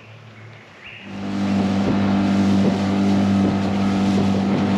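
Outboard motor of an aluminium tinny running at speed, a steady hum over the rush of water from the wake. It starts abruptly about a second in.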